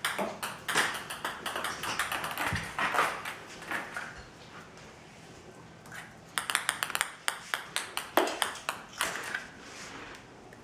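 Celluloid ping pong ball bouncing and skittering on a tiled floor as a Rat Terrier puppy bats and chases it: runs of quick, sharp ticks. The runs come in the first few seconds and again about six seconds in, with single clicks between them.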